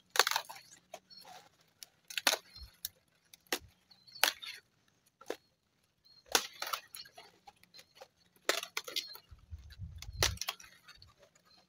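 Kale (sukuma wiki) leaves being plucked off the plants by hand: irregular sharp snaps and rustles, a second or two apart.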